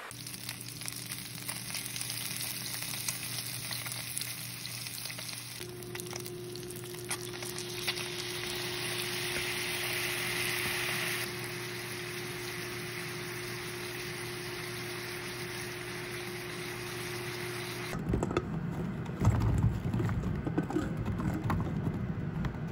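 Pork-wrapped tofu sizzling in oil in a frying pan, brightening as the sauce goes in, over a steady low hum. About 18 s in it cuts to irregular knocking and clatter as sliced eggplant pieces tumble into an unheated nonstick frying pan.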